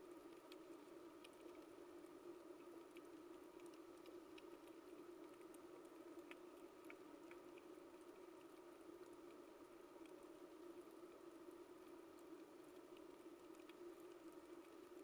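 Faint underwater coral reef ambience: a steady hum with scattered sharp clicks and crackles throughout.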